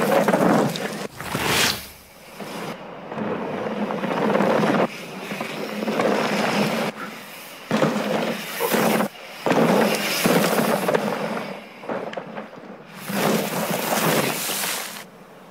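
Mountain bike tyres skidding and scrabbling over loose gravel and dry dirt on a rocky trail, in a series of noisy passes a second or two long with short gaps between them.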